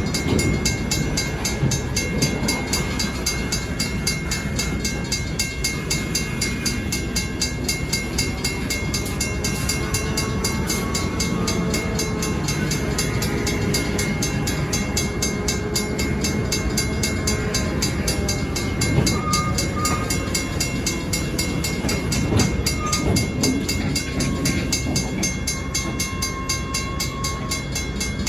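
Stockton Terminal & Eastern freight train on the move: a steady rumble of the locomotive and rail cars rolling along the track.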